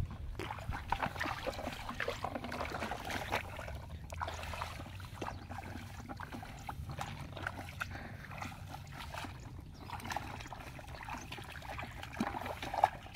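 Bare feet squelching and splashing through shallow water and mud in a flooded rice paddy, an irregular run of small wet steps and sloshes. A sharper, louder noise comes just before the end.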